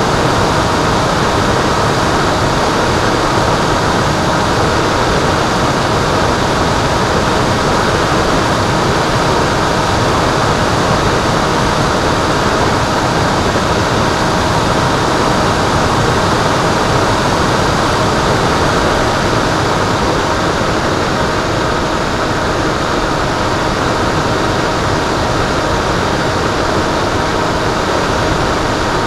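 Steady rush of airflow and wind on the microphone of an FPV Penguin model airplane's onboard camera in flight, with a faint steady hum from its electric motor and propeller.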